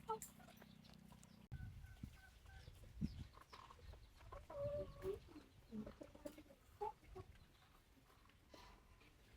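Chickens clucking in short, scattered calls over a quiet background.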